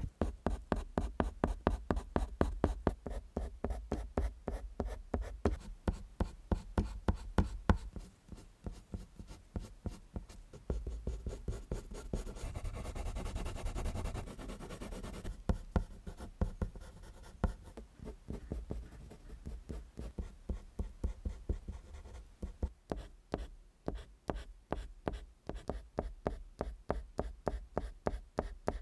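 Colored pencil scratching on paper in quick, short hatching strokes, several a second. In the middle comes a few seconds of steadier rubbing, as the colored area is blended, before the short strokes resume, lighter, toward the end.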